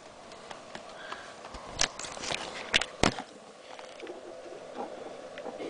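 Handling noise of wires and plastic connector plugs being moved and plugged into an RC car's charging lead: scattered light clicks and knocks, the sharpest about two and three seconds in, over a faint steady hum.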